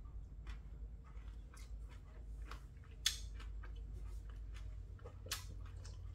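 A person chewing braised monkfish and bean sprouts: soft, irregular mouth clicks and crunches, with a couple of sharper clicks about three seconds and five seconds in.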